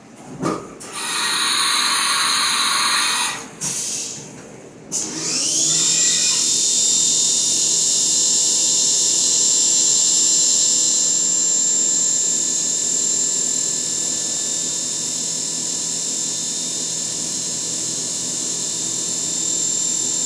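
Haas CNC milling machine: a burst of hissing for a couple of seconds, then the spindle spins up with a rising whine about five seconds in and runs on at a steady high pitch.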